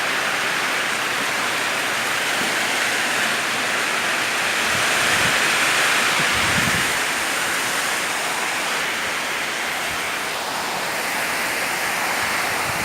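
Heavy rain pouring in a windy thunderstorm, a steady loud rush of noise with gusts of wind on the microphone.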